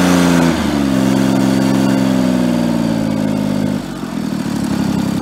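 1988 John Deere 322's Yanmar three-cylinder gasoline engine running on a freshly cleaned carburetor, its speed dropping in two steps, about half a second in and again near the end, getting quieter each time. Its exhaust sounds like the muffler is blown out.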